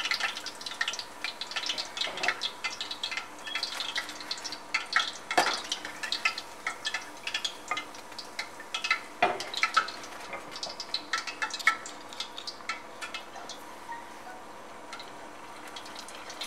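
Hot oil in a steel pot crackling and popping as egg rolls deep-fry, with a couple of sharper knocks, about five and nine seconds in.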